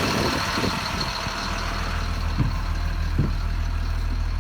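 Caterpillar C7 inline-six diesel engine of a Blue Bird Vision school bus idling steadily.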